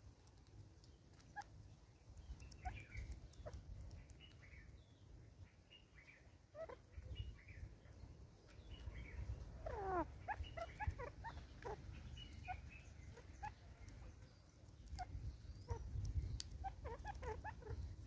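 Birds calling: scattered short chirps, with a dense run of rapid calls about ten seconds in and again near the end, over a low rumble.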